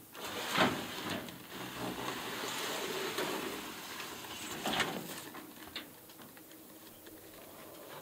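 Wooden horizontal beehive box being slid and tipped off a pickup's bed: a rough scraping with two sharp knocks, one about half a second in and one near five seconds.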